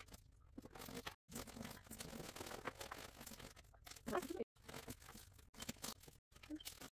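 Paper sheets, stencils and plastic-packaged craft supplies rustling and crinkling in small, irregular handling noises as they are picked up and laid down on a table.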